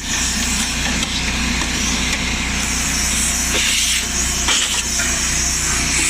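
Shop vac running steadily, its hose sucking dust out of a dryer cabinet, with a generator's engine humming underneath.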